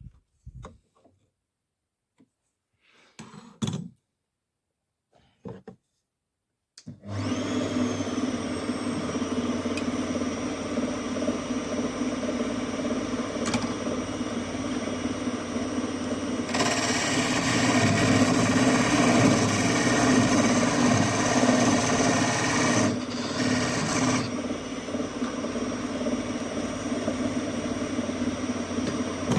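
A few light knocks, then a wood lathe's motor starts about seven seconds in and runs with a steady hum. From about halfway through, a turning tool cutting the spinning wood adds a loud hissing scrape for several seconds, with a short break.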